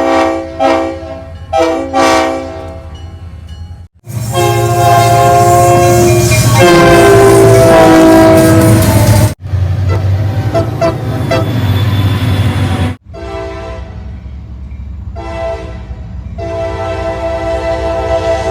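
Diesel locomotive air horns sounding multi-note chords over the low rumble of the engines, in several short clips: a few short blasts, then a long loud blast, then more short blasts ending in a long one.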